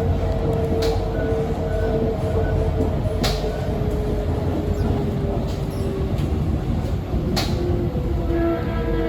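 Inside a C151B metro train car under way: a steady low rumble with a motor whine held at a few steady pitches, and three sharp clicks.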